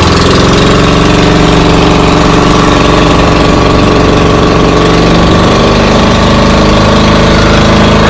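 An engine running steadily at idle, loud and close, with an even pulsing beat.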